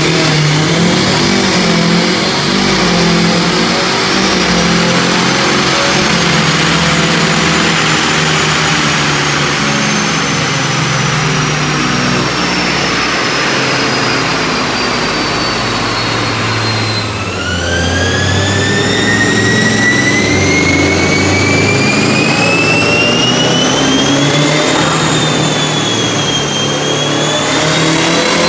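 Bolt-on turbocharged Honda City i-VTEC engine, with a TD04HL turbo, running under load on a chassis dyno, the front wheels driving the rollers. A high whine climbs slowly in pitch and then sags. About two-thirds of the way through it drops sharply and climbs steadily again.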